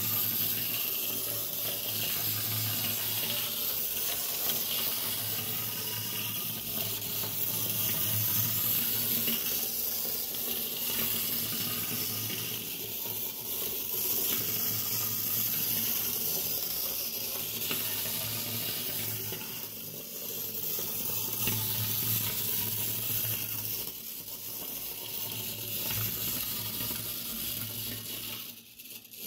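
Clockwork mechanism of a 1950s Japanese tin wind-up skating chef toy running, with its roller skates rolling on a tabletop. It makes a steady rushing whirr that swells and fades every few seconds and stops abruptly near the end.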